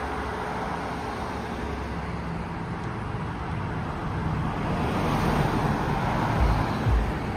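Road traffic: vehicle noise that grows louder over the second half as a vehicle comes near, with low rumbling bumps near the end.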